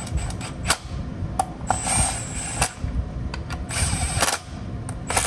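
A ratchet wrench clicking in three short bursts, with sharp metallic clicks in between, as the 10 mm bolts of a GM Ecotec water pump housing cover are run in.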